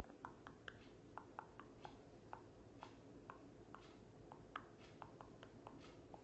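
Near silence: room tone with faint, irregular little clicks, a few a second.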